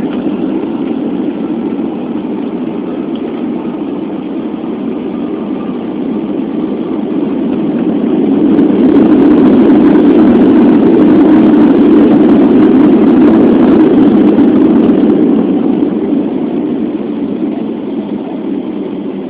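Jet engine noise heard inside an airliner's cabin on the landing roll. The noise swells loudly about eight seconds in, holds for several seconds as reverse thrust slows the plane, then dies back down toward idle.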